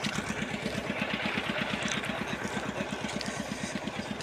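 An engine idling close by, a steady low chugging at about ten beats a second.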